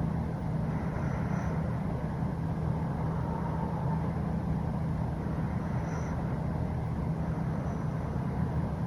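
Steady low rumble of a running vehicle, unchanging throughout.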